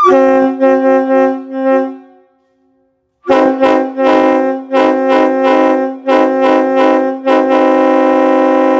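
Nathan Airchime K5HLA five-chime train horn sounding its chord loudly: about four short blasts, a pause of about a second, six more short blasts, then one long held blast near the end.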